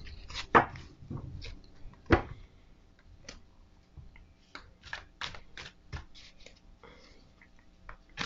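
A Wild Unknown Tarot deck being shuffled by hand, with cards snapping and ticking against each other. There are two louder snaps, about half a second and two seconds in, then a quick run of ticks in the middle.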